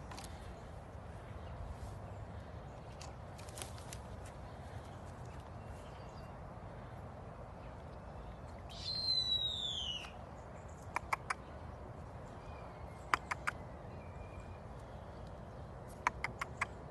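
Common raven calling once, a single falling call lasting about a second, about nine seconds in. It is followed by three quick clusters of sharp clicks, three to five at a time.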